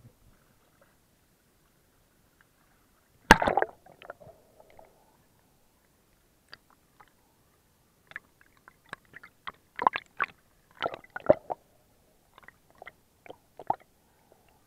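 Water splashing and sloshing around a waterproof camera as it dips in and out of the sea surface. There is one loud splash about three seconds in, then a run of short splashes and slaps later on.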